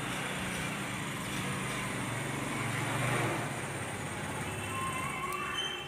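A motor vehicle passing on the street below. Its engine noise grows to a peak about three seconds in, then fades, over a steady background of urban traffic.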